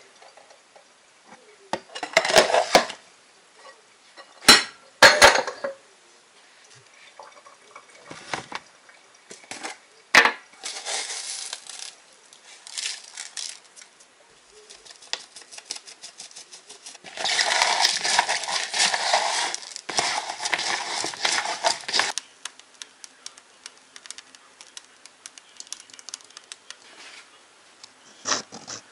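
Dishes and a plastic colander being handled: scattered clinks and knocks. There are also two stretches of continuous rattling and rustling, the longer and louder lasting about five seconds, a little past the middle.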